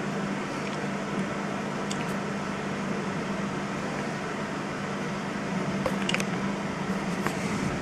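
Steady hiss of heavy rain in a thunderstorm, with a few sharp ticks of drops or hail striking nearby. A steady low hum runs underneath.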